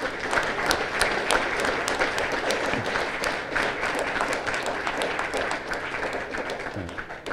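Audience applauding: a dense patter of many hands clapping that holds steady, then dies away near the end.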